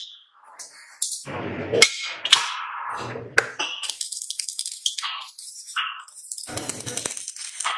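Stick (arc) welding crackling and sizzling as a valve nut is welded onto the steel top of an LPG cylinder, with a few sharp metal clinks and knocks before the steady crackle sets in about four seconds in.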